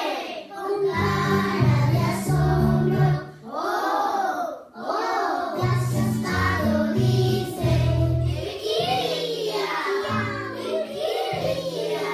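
A group of young children singing a song together in unison, over an instrumental backing with a steady low bass line.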